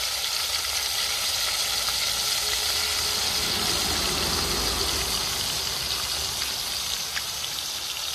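Fish frying in hot oil in a pot, a steady sizzle with a low rumble underneath.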